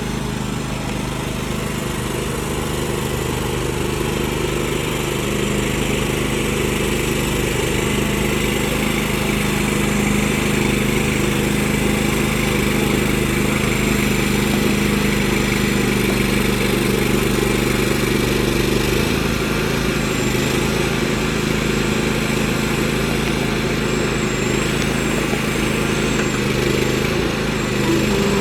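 Small engine of an RHM Go-For Digger towable backhoe, running steadily, its note shifting slightly about two-thirds of the way through.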